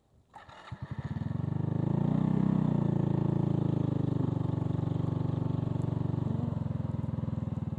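Motorcycle engine running with an even, rapid pulse. It builds up over the first two seconds, holds steady, and eases off near the end.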